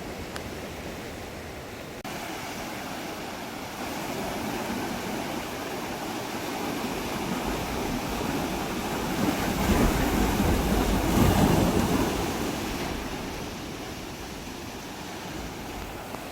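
Sea surf washing in on shoreline rocks, a steady rush that swells into a louder surge of a breaking wave about ten seconds in, then falls away.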